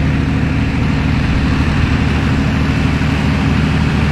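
International Harvester farm tractor's engine running steadily at low speed as the tractor rolls forward, with an even, unchanging note.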